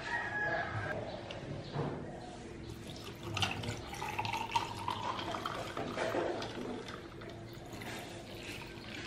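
Tea poured over ice cubes into a tall glass: liquid splashing and filling, with the ice crackling and clinking, loudest in the middle of the pour.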